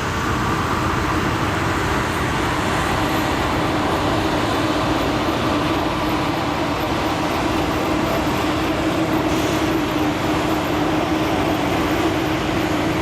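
Steady vehicle noise: engines running with a constant low droning hum over an even rumble.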